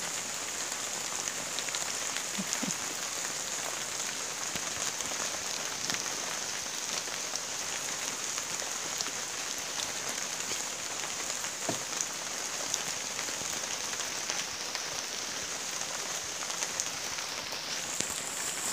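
Steady rain falling, with scattered ticks of single drops landing close by.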